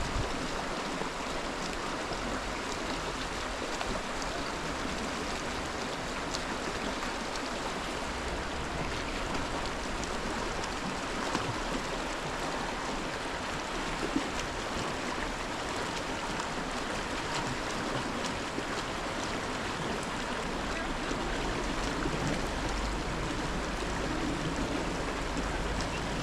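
Steady rushing of running water, an even hiss with a few faint clicks.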